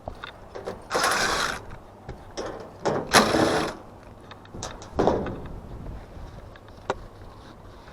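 Evaporative cooler being taken apart by hand: scattered clicks and knocks, with three short rattling, scraping bursts about a second in, about three seconds in and about five seconds in.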